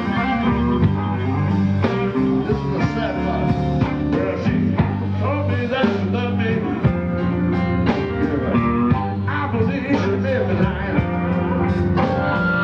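A live blues band playing: electric guitar and drums, with an amplified harmonica blown into a handheld microphone, its notes bending in pitch.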